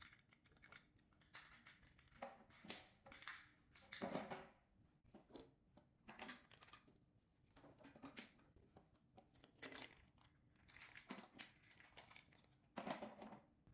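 Faint handling noise: irregular rustling and crinkling with small knocks as the machine's cables and connectors are handled, louder about four seconds in and again near the end.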